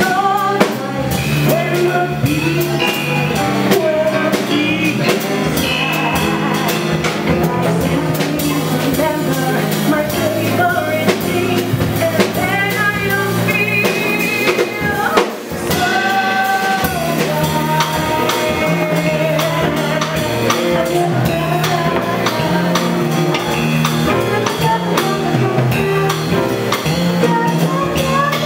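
A woman singing into a handheld microphone over a live band with drums, with a short break in the music about halfway through.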